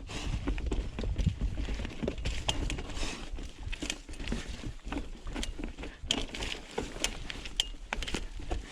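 Mountain bike clattering over rough, technical trail, with many sharp knocks and rattles over a steady low rumble.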